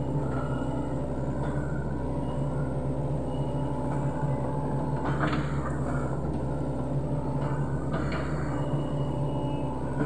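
Sany SY75C excavator's diesel engine running steadily under load with its hydraulics working, with short knocks or cracks about five and eight seconds in.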